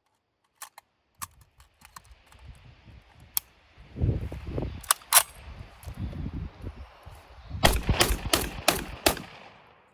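Gunfire: scattered sharp clicks and single shots, then a rapid string of about five shots in about a second and a half near the end, with a low rumble between them.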